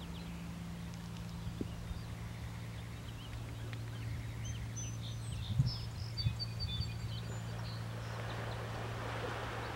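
Small birds chirping in short, high calls over a steady low hum, with a soft hiss building near the end.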